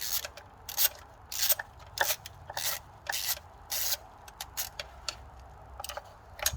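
Ratchet wrench with a 10mm socket loosening the hold-down nut of an ignition coil: a run of short ratcheting bursts, about one or two a second, with a pause of about a second near the end.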